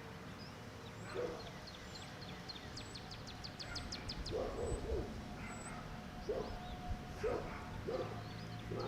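Birds chirping outdoors, with a rapid trill about three seconds in, and short low calls repeating every second or so.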